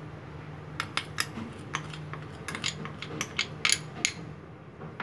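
Steel spoon clinking and scraping against a cut-glass bowl as semolina is spooned onto gram flour: a run of irregular light clinks lasting about three seconds, stopping near the end.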